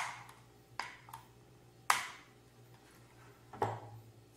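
A few sharp light clicks and taps, about five in four seconds, the first the loudest, from craft tools and materials handled on a tabletop.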